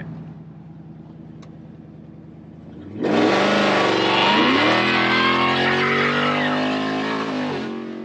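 Supercharged Ford F-150's 5.0 V8 running with its header exhaust cutouts open. It hums quietly at first, then about three seconds in it accelerates hard under load: loud, with the engine pitch climbing for several seconds before it backs off near the end.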